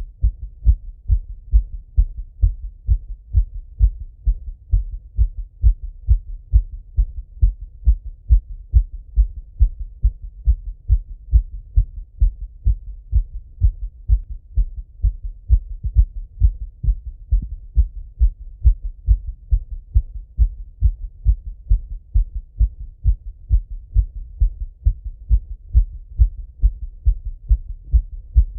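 A man's heartbeat heard through a Littmann stethoscope: a steady, regular run of low, muffled thumps.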